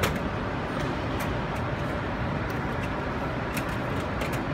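Steady city street background noise, with a few faint light clicks from a drink vending machine's pickup flap and slot as a hand reaches in for a drink.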